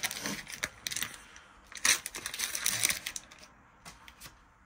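Trading card packs and cards being handled: several short crinkling rustles of foil wrapper and clicks of card edges over the first three seconds.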